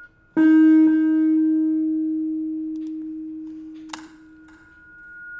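Feedback from an echo effect turned up too far on a bass line, played through speakers. It starts as a loud sustained tone about half a second in that slowly fades, has a click near four seconds, and ends with a high ringing tone swelling toward the end.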